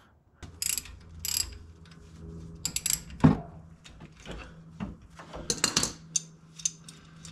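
Ratchet wrench with a 13 mm socket clicking in short bursts as a small bolt on the rear brake caliper of a BMW F90 M5 is backed out. There is one louder knock about three seconds in.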